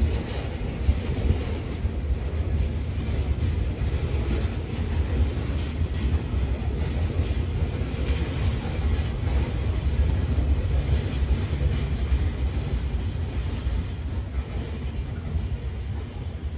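Freight train of aggregate hopper cars rolling past, a steady low rumble of steel wheels on rail that begins to fade near the end.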